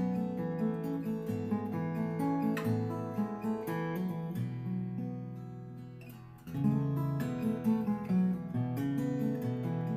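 Solo plucked-string instrumental playing the introduction to a folk song, single notes and chords over a bass line. A chord is struck at the start, rings and fades, and a new loud chord comes in about six and a half seconds in.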